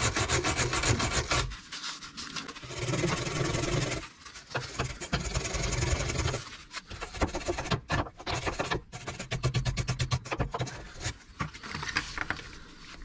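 Wire brush scrubbed back and forth over a leaf spring eye bolt in several bouts of fast rasping strokes with short pauses between. The bolt is being cleaned so penetrating oil can soak in before the very tight bolt is undone.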